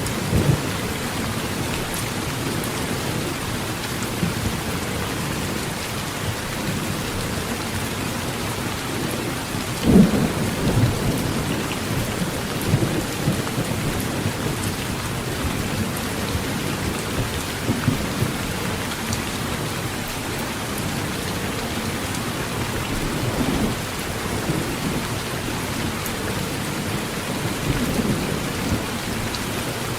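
Steady heavy rain pattering on a tin roof, with low rumbles of thunder coming and going, the loudest about ten seconds in.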